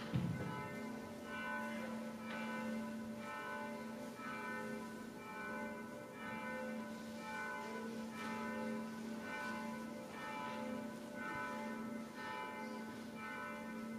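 Several church bells ringing in turn, heard faintly: an even, repeating round of struck notes at fixed pitches, each left to ring on. A single low thump sounds just at the start.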